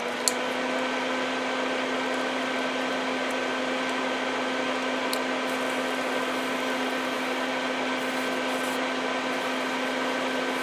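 Electric fan running steadily: an even motor hum with a low steady tone over the rush of air.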